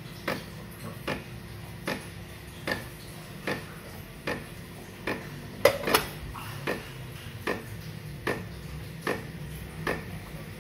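DeLonghi Dedica EC685 espresso machine running its descaling cycle: a low steady hum with a sharp click repeating evenly a little more than once a second. About six seconds in, a glass cup clinks as it is set down under the group head.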